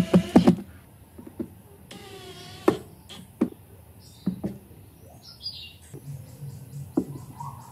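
A cordless impact driver whirs and hammers briefly right at the start, driving a screw into a speaker terminal plate. Scattered knocks and taps follow as the wooden speaker cabinet and a woofer are handled, with birds chirping faintly in the background.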